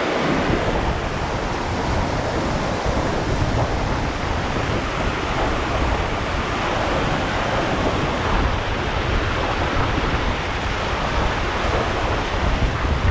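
Fast mountain stream rushing and churning in whitewater just below a log crossing, a steady roar of water.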